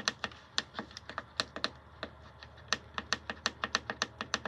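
Rapid, irregular plastic clicks of the Wipro 8 kW diesel heater's control buttons being pressed over and over, several presses a second. The heater gives no response: it will not power up.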